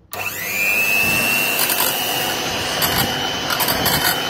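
Electric hand mixer switched on, its motor whining up in pitch and then running steadily as the beaters whip cream, hung curd and soda mixture into a batter.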